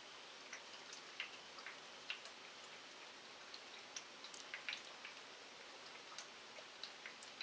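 Light night rain falling on wet pavement: a soft, steady hiss with irregular sharp drops ticking, a few each second.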